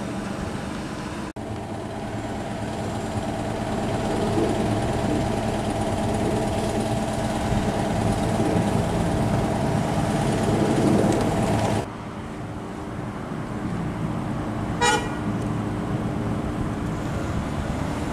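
Steady hum of idling cars and road traffic, with one short, high car-horn toot near the end.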